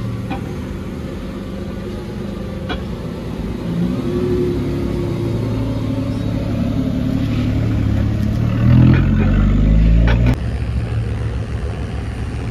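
Lamborghini Revuelto's V12 engine running in street traffic, building and rising in pitch as it accelerates. It is loudest about nine seconds in, then drops off suddenly.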